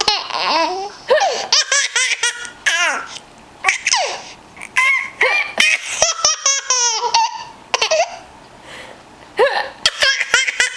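A baby laughing in several bouts of rapid, high-pitched laughs, with short pauses between them.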